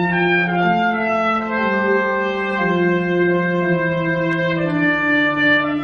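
Orchestral music led by brass, a slow succession of long sustained chords, each held for about a second before moving to the next.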